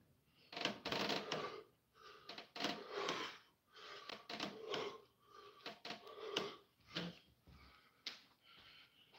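Hard breathing in short, noisy bursts, roughly one a second, during a set of pull-ups on a doorway pull-up bar, with scattered sharp clicks. The bursts fade toward the end as the set finishes.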